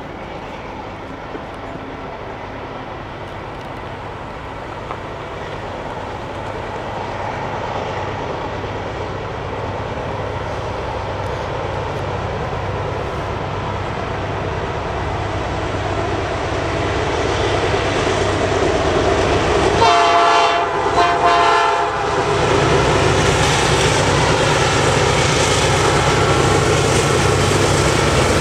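Diesel freight train approaching and growing steadily louder. About twenty seconds in, the lead GE C40-8W locomotive's Nathan P5 five-chime horn sounds for about two seconds, then the locomotives' engines rumble loudly as they come up close.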